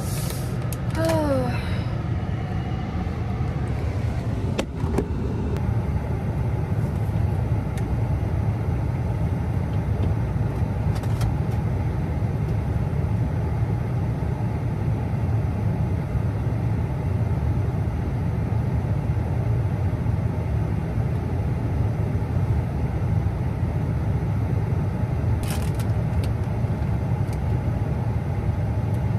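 Steady low rumble of a car's engine and road noise heard from inside the cabin while driving. A brief sound falling in pitch comes about a second in, and a sharp click near the end.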